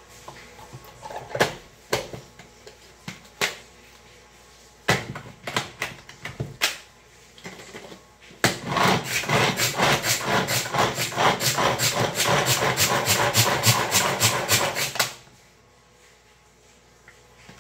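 Hand-pulled manual food chopper chopping onion: scattered clicks and knocks of the plastic lid and bowl being handled, then from about eight seconds in a fast, even run of pulls, each a short rasping whir of the blades, stopping about fifteen seconds in.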